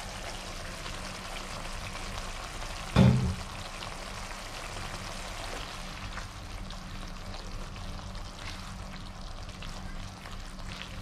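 Blended-chilli berlada sauce sizzling in a wok as it is stirred with a silicone spatula, over a steady low hum. A single short, loud thump comes about three seconds in.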